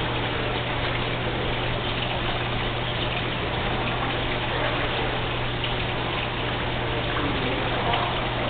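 Steady rush of running water with a low, constant hum beneath it.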